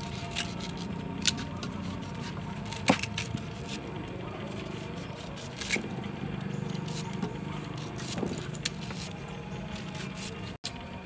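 Kitchen knives cutting chunks off crisp white fruit held in the hand, with several sharp clicks as the blades snap through and pieces drop into a steel bowl of cut fruit; the loudest comes about three seconds in.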